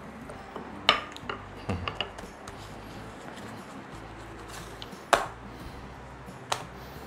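A few sharp knocks of kitchen tools on a granite worktop as a wooden rolling pin and a plastic dough scraper are put down and used on the stone. There is a small cluster of knocks early, a louder single knock about five seconds in, and one more near the end, over a steady low hum.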